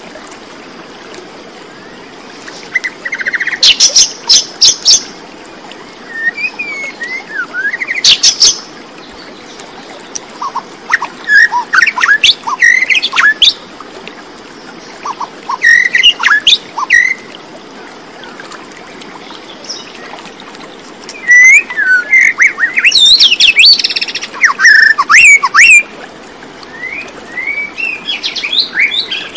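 Birds chirping and calling in bouts a few seconds long with quieter gaps between, the calls quick rising and falling whistles and sharp chirps.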